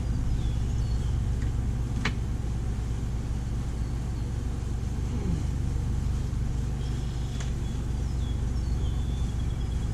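Chainsaw running steadily under load as it rips a mesquite log lengthwise into a board in a chainsaw-mill fixture, with two sharp clicks about two seconds in and near seven seconds.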